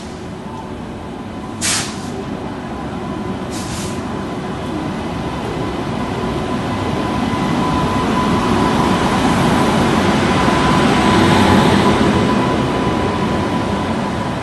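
Passenger express train hauled by an electric locomotive rolling into the platform. Two short hisses come in the first few seconds, then a rumble of wheels and motors swells as the locomotive and coaches pass close, peaking near the end and easing off as the coaches roll by.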